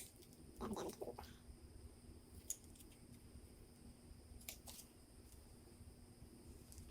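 Near silence: room tone with a steady faint hum and a few faint clicks.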